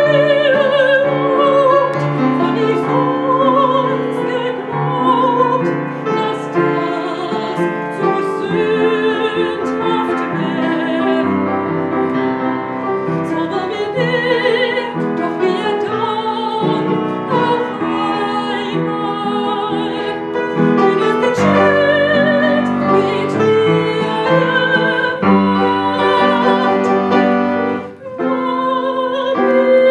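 A woman singing classical song in operatic style, her voice carrying a wide vibrato, accompanied by piano. There is a brief break near the end.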